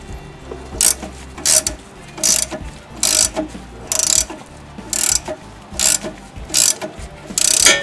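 14 mm ratcheting wrench working a stabilizer link nut, its pawl clicking in short runs on each back-swing, about ten strokes at an even pace of roughly one and a half a second.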